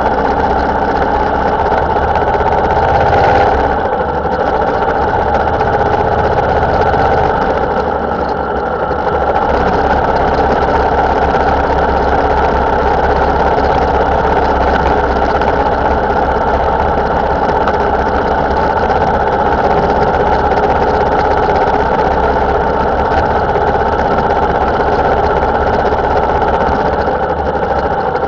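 Motorcycle engine running steadily while riding at road speed, heard through a bike-mounted camera along with road and wind noise.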